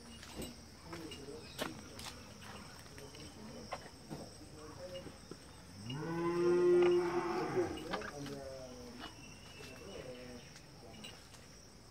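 A cow mooing once, a single drawn-out call beginning about six seconds in and lasting nearly two seconds, its pitch rising at the start and falling away at the end.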